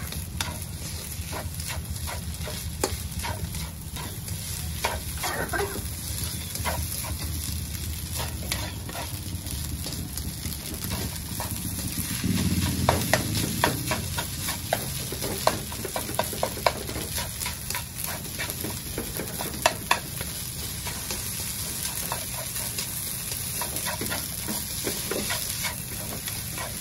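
Fried rice stir-fried in a non-stick wok: a steady sizzle with rapid, repeated scrapes and taps of a slotted spatula against the pan, growing louder for a couple of seconds about halfway through.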